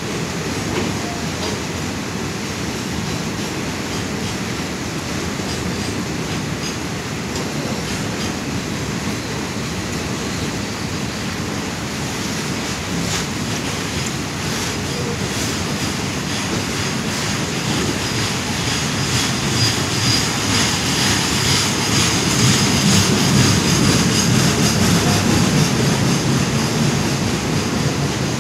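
Loaded freight train of BCNA covered wagons rolling past: a steady rumble with wheels clattering over the rail joints. In the second half it grows louder and high-pitched wheel squeal comes in.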